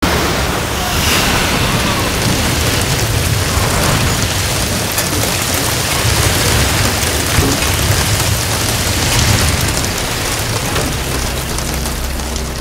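Loud, dense rushing noise with a deep rumble underneath, starting abruptly out of silence and holding steady, from a film soundtrack.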